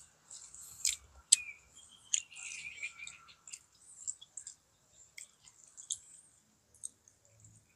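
Close-up eating sounds: chewing, with fingers picking and pulling apart deep-fried fish and rice. A string of short, sharp clicks and crackles, the loudest about a second and a half in.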